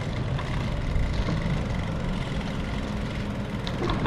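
Motor vehicle engine running close by, a steady low rumble with a faint constant hum.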